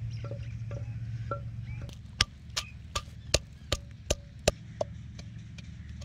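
A wooden pestle pounding garlic cloves and ginger in a clay mortar bowl: about eight sharp knocks, roughly three a second, starting about two seconds in. Before the pounding there is a low steady hum with short chirps.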